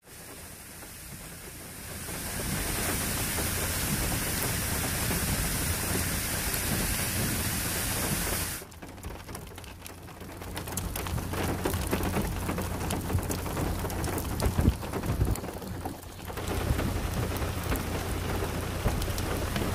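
Heavy rain falling, with runoff water pouring down rocky slopes as a steady hiss. The sound changes abruptly about two and nine seconds in, and dips briefly near sixteen seconds; scattered sharp drop hits are heard in the later part.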